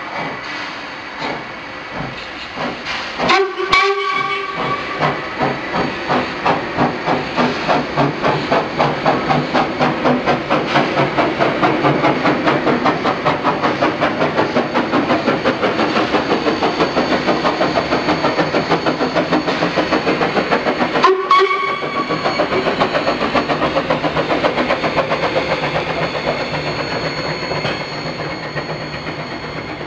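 A steam locomotive getting under way: its exhaust chuffs speed up from about one a second to a rapid beat. There are two short whistle blasts, one about three seconds in and another around twenty-one seconds in.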